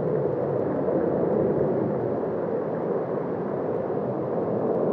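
Steady rushing outdoor background noise, even and without distinct knocks or voices.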